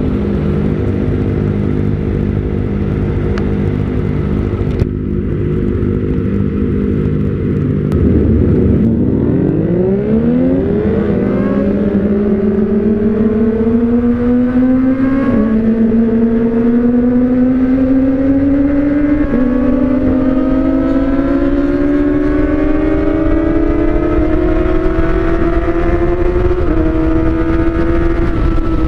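Kawasaki ZX-25R's 250 cc inline-four running through an Austin Racing aftermarket silencer. It holds a steady note for about eight seconds, then the revs climb as the bike pulls away and accelerates. The pitch dips briefly at upshifts about halfway through and near the end.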